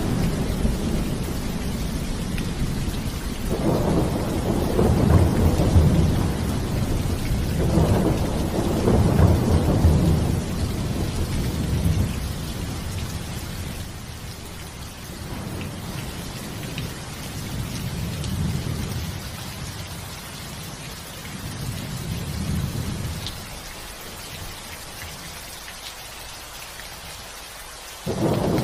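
Steady rain falling, with rolling thunder. Long low rumbles swell a few seconds in and again around eight seconds in, then ease off into fainter rumbles. The thunder comes back loud all at once just before the end.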